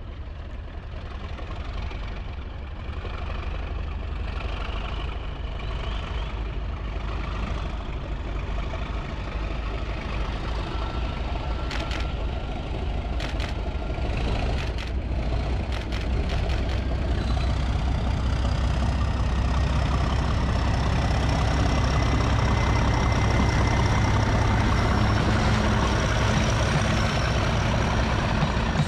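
Colas Rail Class 37 diesel locomotive with its English Electric 12-cylinder engine, approaching with a Network Rail test train, the deep engine rumble growing steadily louder. Near the end the coaches roll past on the rails, with a few sharp clicks around halfway through.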